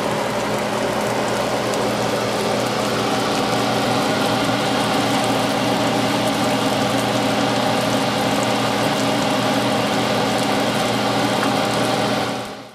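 Chicken of the woods mushroom pieces and eggs frying in oil in a pan: a steady sizzle with a low, even hum beneath it, fading out near the end.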